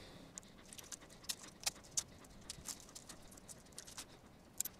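Clear plastic protective film being peeled and pulled off a stainless steel watch bracelet: faint, irregular crinkling and small clicks, with the bracelet links clicking as it is handled.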